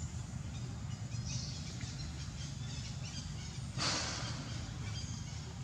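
Forest ambience: scattered faint bird chirps over a steady low hum, with one brief burst of noise about four seconds in.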